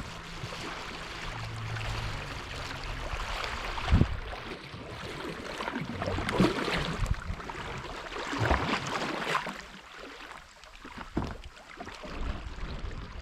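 Kayak paddling: irregular paddle strokes splashing in the water with water lapping, and a few sharp knocks, the loudest about four seconds in; quieter toward the end.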